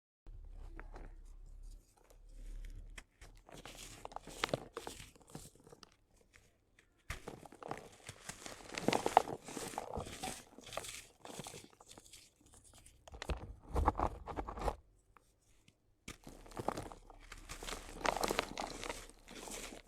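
Dried sand cement crunching and crumbling with gritty crackles. It comes in bursts of a few seconds separated by short pauses.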